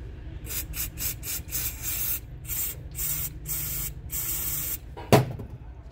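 Aerosol spray can squirting cleaner through a red straw nozzle into a diesel injector's fuel inlet: about a dozen short hissing bursts, the last one longer. A single sharp knock comes about five seconds in.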